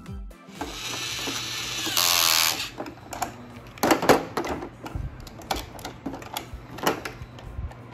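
Toy battery-powered screwdriver whirring for about two seconds, loudest just before it stops, followed by scattered plastic clicks and knocks as toy airplane parts are handled.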